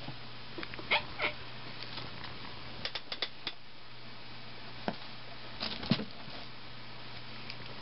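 Two cats scuffling and pawing at the gap under a wooden dresser: scattered light taps and scratches, with a quick run of clicks about three seconds in and another just before six seconds.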